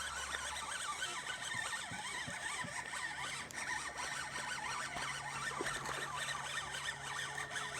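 Fishing reel being cranked, a steady zipping whir, as a hooked bass is reeled in.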